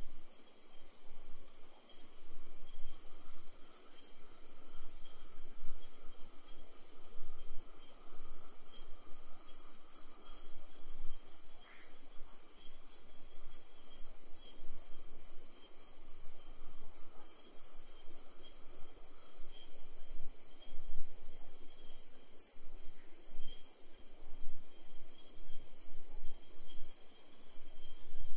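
Chorus of crickets chirping in fast, even pulses, with a low rumble swelling and fading beneath it.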